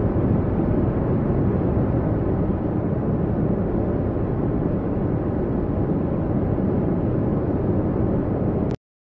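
A steady low rumble with no clear pitch, even in level, that cuts off abruptly near the end.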